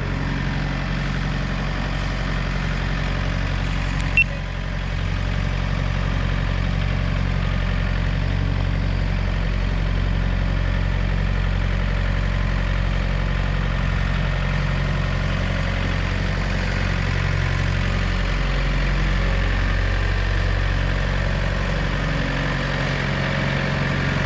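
Backhoe loader's diesel engine running steadily as the machine drives with a pallet load on its front forks. One sharp knock about four seconds in.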